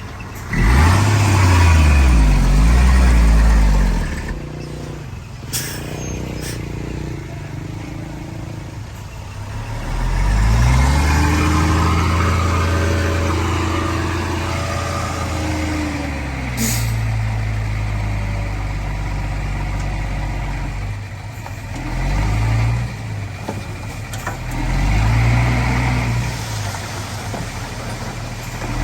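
Heavy diesel engines of a bulldozer and dump trucks working, revving up and easing off several times under load, with two short sharp noises.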